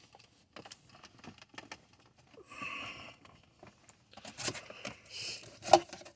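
Scattered small clicks and taps of plastic dashboard trim panels being worked loose and handled inside a car, with a short breathy rustle about two and a half seconds in.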